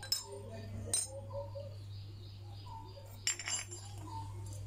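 Light metallic clinks of the motorcycle's oil filter cover and its small bolts being handled: one near the start, another about a second in, and a quick cluster a little after three seconds, over a steady low hum.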